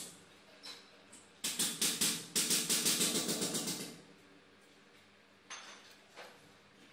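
Wooden volute block worked back and forth against the end of a wooden stair handrail during test-fitting: a quick run of wood-on-wood rubbing strokes, about four a second, for a couple of seconds, with a few faint knocks before and after.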